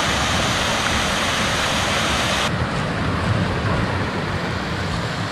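Steady rush of a waterfall close by, a dense hiss over a low rumble. The upper hiss drops away abruptly about halfway through.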